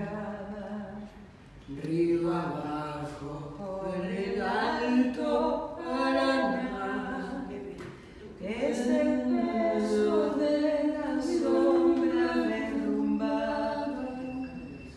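A woman singing unaccompanied into a microphone, holding long notes with short breaks between phrases.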